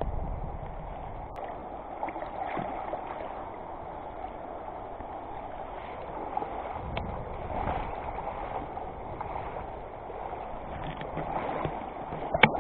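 Shallow river water rushing over stones, with a few faint splashes and one short, louder knock-like sound near the end.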